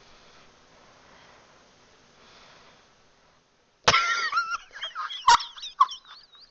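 After a few quiet seconds, a person breaks into a high-pitched wheezing laugh: squeaky, wavering squeals broken by sharp gasps.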